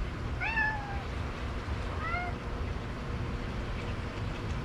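A pet cat meowing twice: a longer meow about half a second in and a shorter one about two seconds in.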